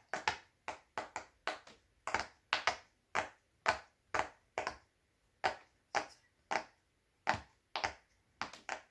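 Silicone pop-it fidget toy bubbles being pressed through one after another on its loud side, a string of sharp pops at an uneven pace of two or three a second, with a brief pause about halfway.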